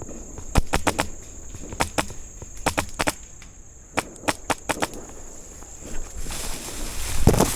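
Airsoft gun firing in short strings of sharp, quick shots, a dozen or so in four or five groups over the first five seconds, over a steady high-pitched whine. Near the end a rushing, rustling noise builds up and grows loud.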